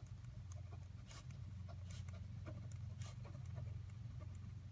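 Pen writing on a sheet of paper: faint, short scratching strokes as letters are formed, in an irregular rhythm.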